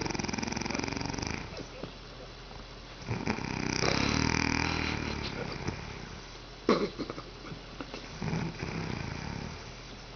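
A sleeper snoring heavily: three long, rattling snores about three to four seconds apart, the middle one loudest. A short, sharp sound comes between the second and third snores.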